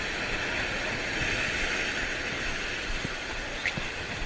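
Steady rushing noise of sea surf breaking on a rocky shore.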